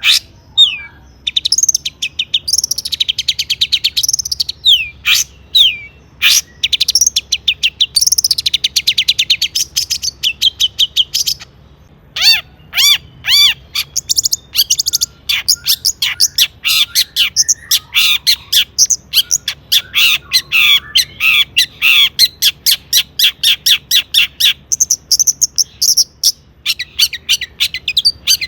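Long-tailed shrike (cendet) singing loudly: a fast, varied song of chattering trills, rapid repeated notes and down-slurred whistles, full of mimicked phrases, broken by short pauses.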